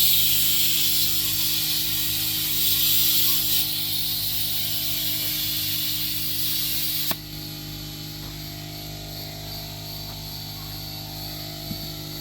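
Compressed air hissing hard from an air-compressor hose, cutting off suddenly with a click about seven seconds in. A steady low hum runs underneath throughout.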